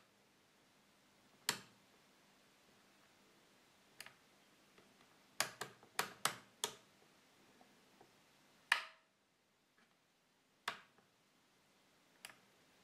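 Toggle switches on a FlySky FS-T6 radio transmitter being flicked between positions: about ten sharp clicks, with a quick run of five near the middle.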